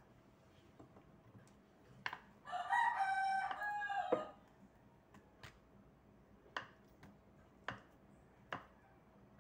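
A rooster crows once, starting about two and a half seconds in and lasting nearly two seconds, the loudest sound. Around it, a kitchen knife cuts firm tofu into cubes, the blade tapping sharply on the cutting board about once a second.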